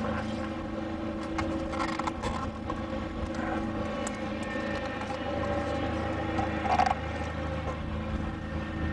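A steady engine drone, its pitch rising just before and then holding level, with a few light knocks and clicks.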